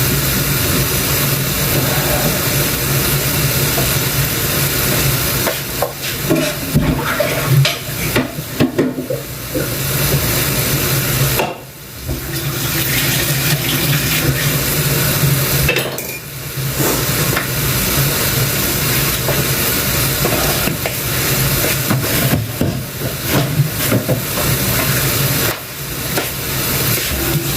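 Kitchen work: a steady hiss over a low hum, with clinks of dishes and utensils, most of them between about six and ten seconds in.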